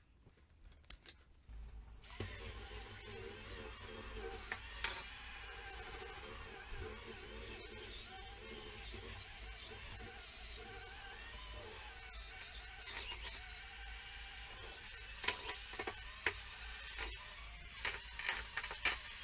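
Cordless electric spin scrubber running, its brush spinning against a tiled tub-surround wall. The motor starts about two seconds in and runs on with a wavering pitch, with several sharp knocks in the last few seconds.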